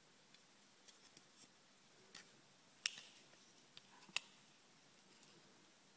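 Small hard-plastic toy parts clicking and tapping as fingers handle and fit them, a few light clicks with two sharper ones about three and four seconds in, over near silence.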